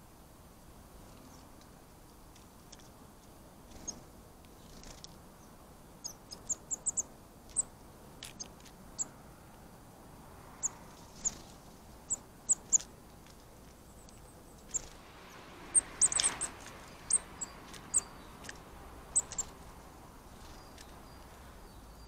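Small songbirds calling with short, high chip notes, scattered irregularly and most frequent in the middle stretch. A soft rush of background noise swells briefly about two thirds of the way through.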